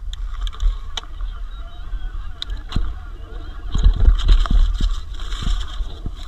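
E-mountain bike riding down a rough enduro trail: wind rumbling on the microphone, with rattles and clacks from the bike and tyres over the ground, rougher and louder about four seconds in.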